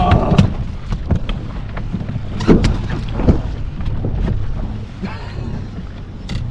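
Wind buffeting the microphone with a constant low rumble. Several sharp knocks sound through it in the first half.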